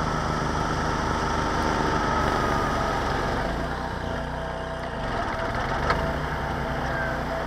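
Homemade mini-tractor's engine running steadily while it drives a front-mounted homemade rotary snow blower throwing snow, the machine passing close by. A single sharp click near the end.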